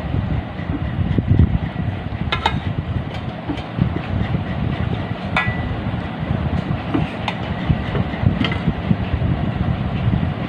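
A steel spoon stirring and scraping rice in a steel pot gives four sharp metallic clinks that ring briefly. Under them runs a steady low rumble, which is the loudest sound.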